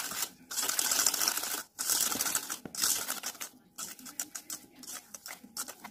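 Wire hand whisk rattling fast against a stainless steel bowl as it beats egg, oil and sugar, a rapid run of clicks. It breaks off briefly a few times, then goes on lighter and sparser in the second half.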